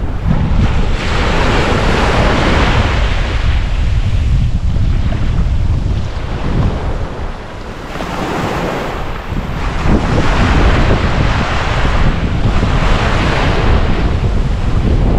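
Sea waves breaking and washing up on a beach, swelling twice, with heavy wind rumble on the microphone.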